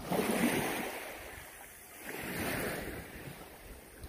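Small waves washing up onto a sandy beach, two swells of surf about two seconds apart.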